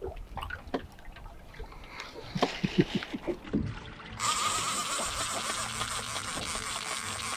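Wind and sea water washing around a small boat at open sea. A few faint knocks and brief sounds come first, then a steady hiss starts suddenly about four seconds in.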